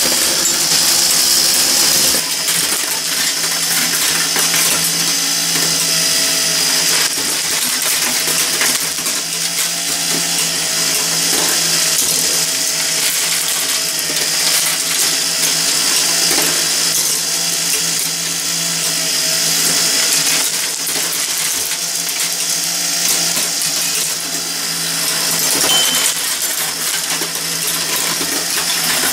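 Meccano marble machine running: its metal crankshaft, pulleys and linkages clatter steadily while glass marbles click against one another and the metal track, over a steady low hum.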